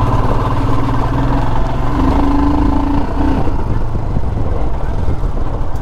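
Royal Enfield Himalayan's single-cylinder engine running steadily while the bike is ridden, its firing pulses even and unbroken.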